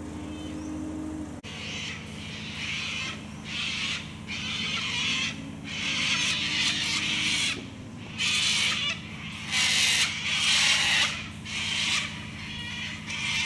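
A flock of sulphur-crested cockatoos screeching: a string of about a dozen harsh screeches, each lasting up to a second or two with short gaps between, loudest near the end. A steady low hum runs underneath.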